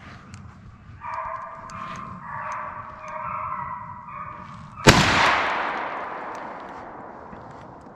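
Deer hounds baying on a chase, louder from about a second in, then a single shotgun blast about five seconds in that echoes and fades away over the next two seconds.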